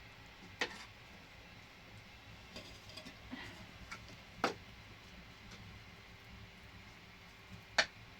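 Three sharp clicks: one just under a second in, one about four and a half seconds in, and the loudest near the end, with a few fainter ticks between them, over a low steady background.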